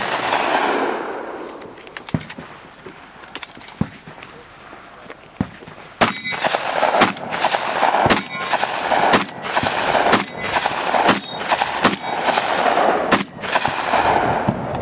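Shotgun shots at steel targets, each shot followed by the ring of struck steel. One shot comes right at the start. Then there is a lull of a few seconds with only a few light clicks, and from about six seconds in a run of about ten shots roughly a second apart.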